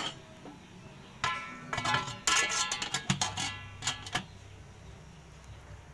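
Stainless steel pot lid clattering and ringing against the pot as it is set on, in a quick run of metallic clinks from about a second in until about four seconds in.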